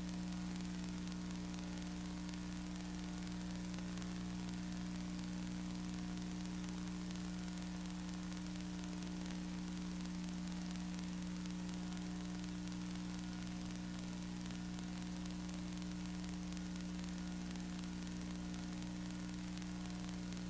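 Steady electrical hum with two strong low tones, under an even hiss, unchanging throughout.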